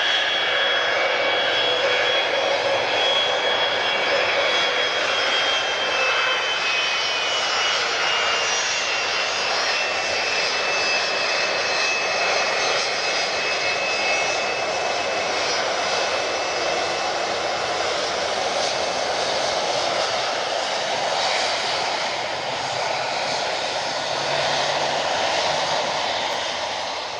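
Boeing 757 freighter's twin jet engines running at taxi power as it rolls by: a steady roar with high whining tones that sag slightly in pitch partway through.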